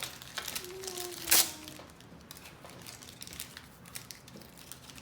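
Foil trading-card pack wrappers and cards crinkling and rustling as they are handled, with one sharp crackle about a second and a half in.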